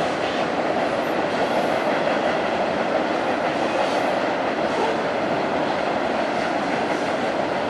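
Cars of a Norfolk Southern mixed freight train (tank cars, covered hoppers, boxcars) rolling across a steel girder railroad bridge: a steady, dense rumble and rattle of wheels on rail.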